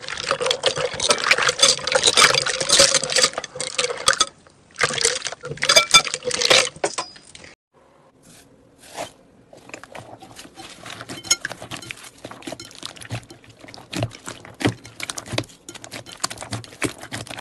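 Slime being worked by hand, giving dense crackling and popping in two loud stretches, then softer, sparser clicking and squishing in the second half.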